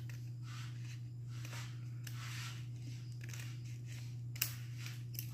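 Scissors cutting through a folded red paper sleeve: a run of soft rustling snips, with two sharp clicks of the blades near the end, the first the loudest. A steady low hum runs underneath.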